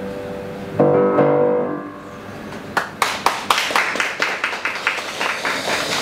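Nineteenth-century Röder grand piano sounding the closing chord of a piece, struck about a second in and left to ring away. From about halfway, a small audience claps, with each clap heard separately.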